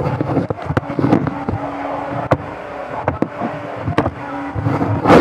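Slime being squeezed and pressed by hand, giving off a dozen or so sharp, irregular pops and clicks.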